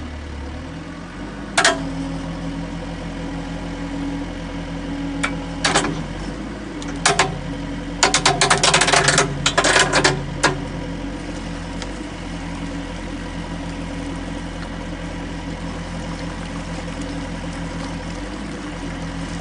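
An engine running steadily at a low pitch, with a few sharp knocks and then a quick rattling clatter of knocks for about two seconds in the middle.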